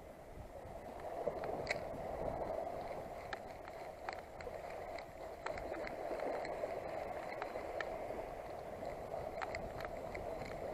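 Spinning reel being wound steadily to retrieve a cast lure, a continuous whir with scattered light clicks.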